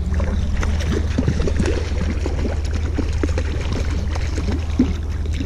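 Stream water running steadily under a low rumble, with irregular small splashes and gurgles.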